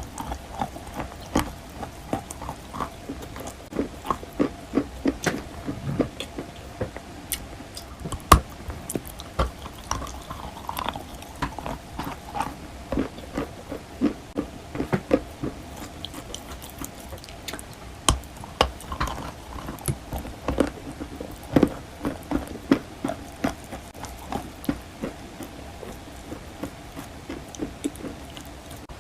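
Wet white chalk being bitten and chewed: a long run of short, irregular crunches, often several a second.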